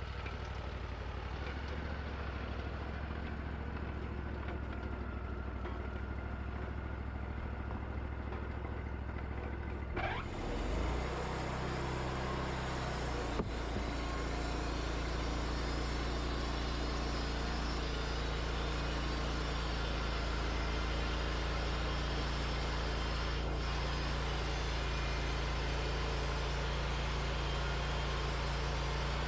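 Wood-Mizer LT40 bandsaw mill's engine running steadily; about ten seconds in it revs up with a rising whine and the band blade starts cutting through the red oak, a steady sawing hiss over the engine after that, with one sharp click a few seconds later.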